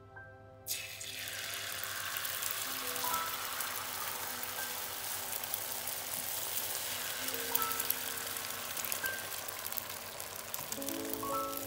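Beaten eggs sizzling in hot oil in a non-stick frying pan: the sizzle starts suddenly under a second in as the egg hits the pan, then holds steady while more is poured. Gentle background music plays underneath.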